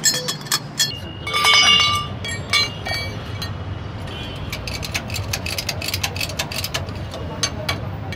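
Metal tools clinking against the truck's wheel, with a ringing metallic clang about a second and a half in. Then a steady run of quick clicks as a jack under the truck is worked to raise it.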